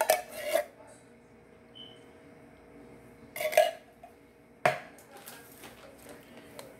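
Kitchenware being handled on a countertop: a short clatter at the start and another about three and a half seconds in, then one sharp knock just under five seconds in as a metal can is set down on the counter.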